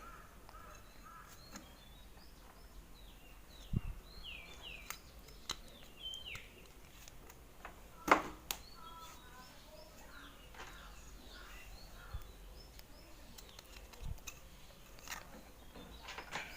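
Birds chirping throughout, over scattered light clicks and knocks from small parts being handled while rubber dampers are fitted into a motorcycle clutch housing. The sharpest knock comes about eight seconds in.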